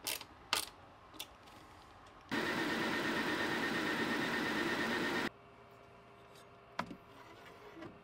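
Creality K1C 3D printer running, a steady whir of its fans and motors for about three seconds that starts and stops abruptly. A few light clicks of a screw being driven into the case panel come before it, and a faint hum follows.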